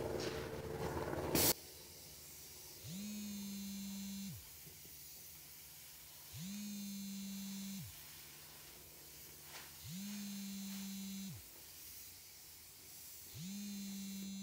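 Airless paint sprayer: the spray gun hisses and cuts off sharply about a second and a half in. Then the sprayer's electric pump motor runs up and stops in four short whirring bursts about three and a half seconds apart, cycling to hold pressure.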